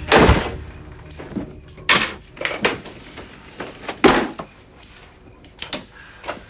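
A string of knocks, thumps and small clatters from objects being handled and set down on a wooden desk. The loudest knocks come right at the start and about four seconds in, and a quick double knock follows near the end.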